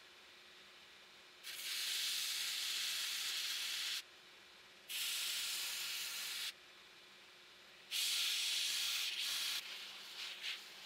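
Steel planer blade being ground on a small belt grinder: three passes of a bright, hissing grind against the abrasive belt, each about one and a half to two and a half seconds long, then a few short light touches near the end. Between passes the grinder runs on more quietly.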